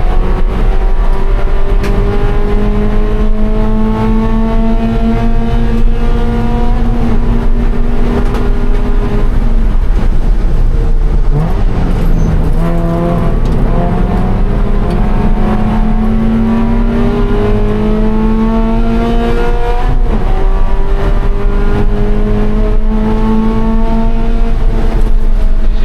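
Scion FR-S's 2.0-litre flat-four engine pulling hard at race pace, its pitch climbing steadily over several seconds and dropping back about ten, thirteen and twenty seconds in, under a steady rush of road and wind noise.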